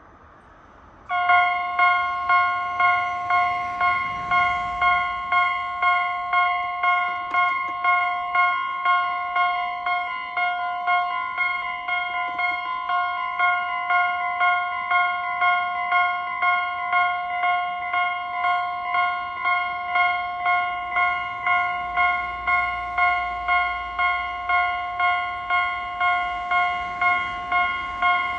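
Japanese railway level-crossing warning bell starting about a second in and ringing in an even, repeating clang, about three strikes every two seconds.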